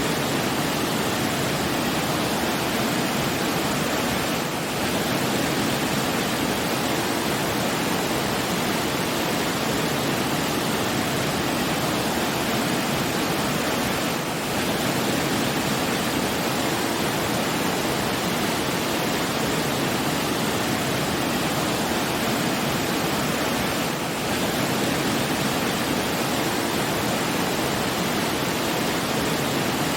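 Steady rush of flowing water, even and unbroken, with slight brief dips about every ten seconds.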